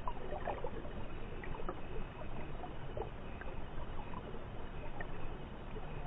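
Flowing stream water heard underwater: a steady muffled rush with scattered small pops and ticks. Most of the pops come in the first second, as an American dipper dives in and swims along the bottom trailing bubbles.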